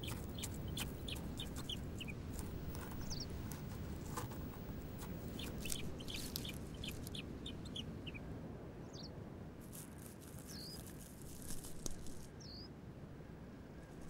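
Common buzzard chick begging with short, high-pitched chirps: a quick run of them in the first two seconds, then single calls every second or two. Bursts of rustling at the nest twice in between, over a steady background hiss.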